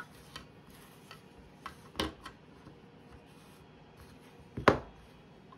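3D-printed plastic grille pieces being handled and pushed together on a mat: a few light clicks and taps, with a louder knock about two seconds in and the loudest, sharp knock near the end.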